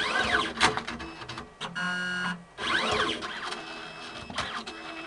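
Motors of an automated pipetting robot moving its arm: whines that rise and then fall in pitch as the arm speeds up and slows down, twice, with a steady buzzing tone of about half a second between them and scattered mechanical clicks.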